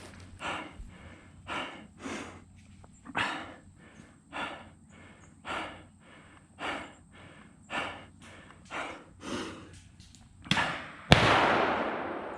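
A player breathing heavily into a head-worn microphone, about one hard breath a second. Near the end come a sharp knock and then a louder thump, followed by a fading rush of noise.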